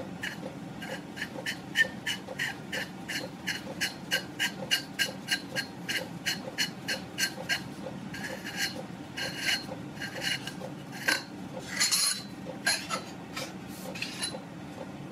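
Silencer part being turned by hand onto the threaded barrel of an air rifle: a steady series of light rasping clicks, about three a second, then a few louder, irregular clicks and knocks near the end.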